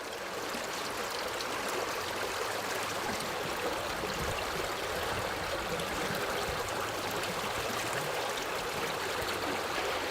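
Flowing water of a stream running steadily.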